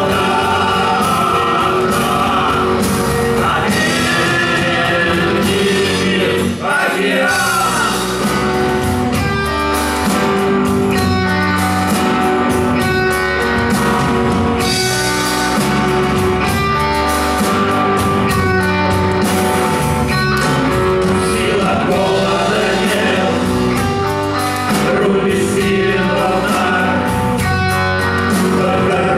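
Rock band playing live with a singer: electric guitar over a steady beat, with a brief break about seven seconds in.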